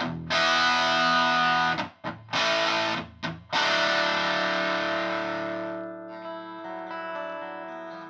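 Gibson Les Paul Junior electric guitar played through a converted Bell & Howell 614 AQ Filmosound projector amplifier and its stock 5-inch Jensen speaker. Several chords are struck and cut off short in the first three seconds or so, then one chord is left to ring and fades slowly.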